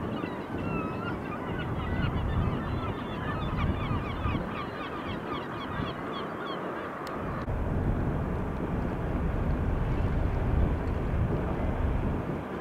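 A flock of geese honking, many short overlapping calls, which stop a little past halfway. A steady low rumble runs underneath.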